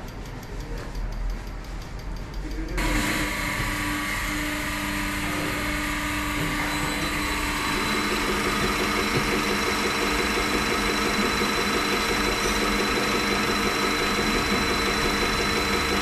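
A workshop machine starts abruptly about three seconds in and runs steadily with a mechanical hum and whine. About halfway through, a fast regular pulsing joins it.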